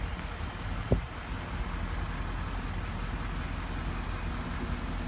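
Engine idling with a steady low rumble. A single sharp knock comes about a second in.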